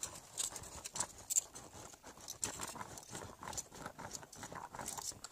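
Small plastic toy lizard on a string run along a hard floor, making rapid, irregular light clicks and taps.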